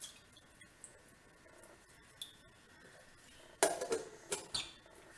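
Plastic lid set onto a stainless-steel mixer-grinder jar and pressed down: a sharp clatter a little past halfway, then two or three quick clicks as it seats. Before that, only faint small clicks.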